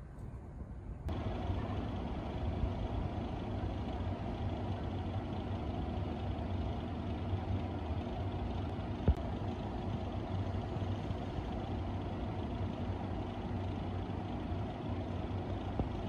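Steady low mechanical hum and rumble, like an idling engine, starting abruptly about a second in, with one sharp click near nine seconds.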